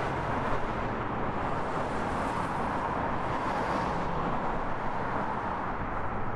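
Steady running noise of heavy machinery, with a faint high hum in it, cutting off abruptly near the end.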